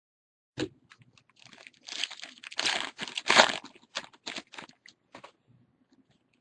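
A trading-card pack's foil wrapper being torn open and crinkled by hand. It starts with a sharp crackle about half a second in, then a run of crinkling and tearing that is loudest a little past three seconds and fades out after about five.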